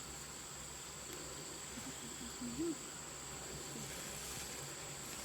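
Insects chirring steadily in the forest at a high, even pitch. A short low tone that rises and falls cuts in once about two and a half seconds in.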